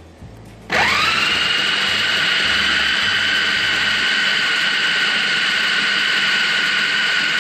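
Electric food chopper's motor starting about a second in with a rising whine that settles into a steady high whir, its blade chopping onion, tomato and green chilli.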